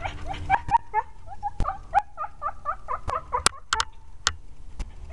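A dog whining in a quick run of short, high whimpers that bend up and down in pitch, with a few sharp clicks mixed in.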